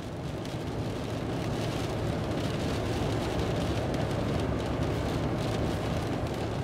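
Steady low rumble and hiss of a car driving on a wet road in the rain, heard from inside the cabin.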